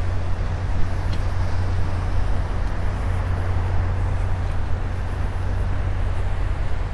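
Wind buffeting the phone's microphone, a steady low rumble, over the even hiss of small waves breaking on the beach.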